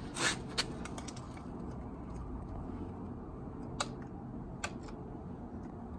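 Scattered light metallic clicks and taps as a dirt-caked old engine and its parts are handled, with two sharper clicks later on, over a low steady hum.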